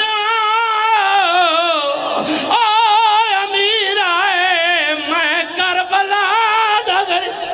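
A man's voice chanting a Punjabi lament in long held notes with strong, wavering vibrato, amplified through a microphone. There is a short break about two seconds in, then the chant goes on.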